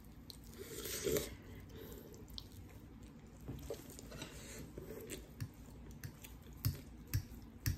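A person biting into and chewing a piece of chicken close to the microphone, with soft wet mouth sounds and a few short sharp clicks near the end.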